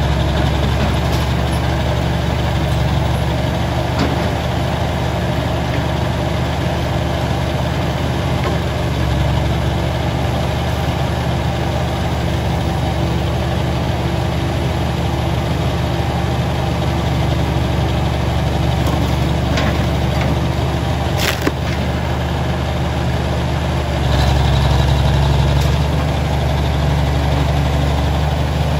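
Old excavator's diesel engine running steadily while it works its log grapple, the engine getting louder late on. There is a single sharp click a little before that.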